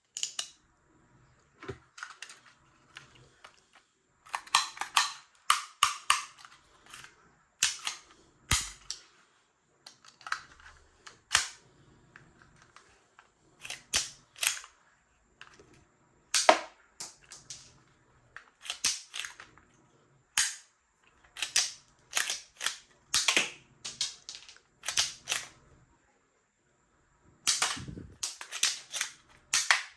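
Spring-powered toy gun being worked and fired over and over: dozens of sharp snaps and clicks at an irregular pace, often in quick pairs or small clusters, with a pause of about a second and a half near the end.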